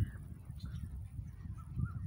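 A bird calls faintly in a repeated warbling pattern during the second half, over a quiet, uneven low rumble.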